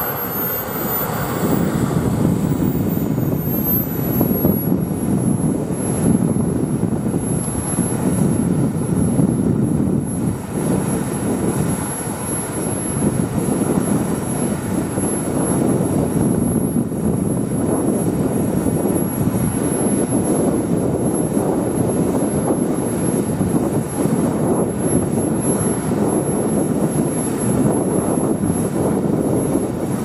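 A radio-controlled model jet's small turbine engine running as the plane taxis: a steady jet rush with a thin, very high-pitched whine on top. The whine rises sharply in the first couple of seconds as the engine spools up, then falls back and holds steady.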